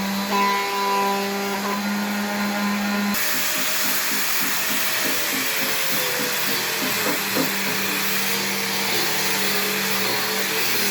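An electric power tool's motor running steadily, first as a pitched hum, then, after an abrupt change about three seconds in, as a hissing whir.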